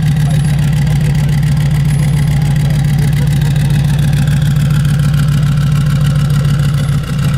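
Rat rod pickup's engine idling steadily through open, unmuffled headers, with fast, even firing pulses and a brief dip about seven seconds in.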